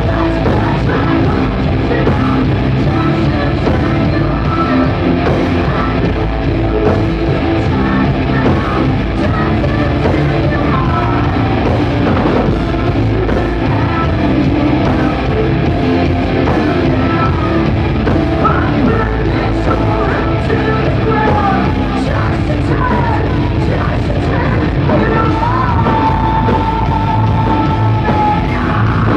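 Live hard rock band playing loudly: distorted electric guitars, bass and drums, with a high note held for a couple of seconds near the end.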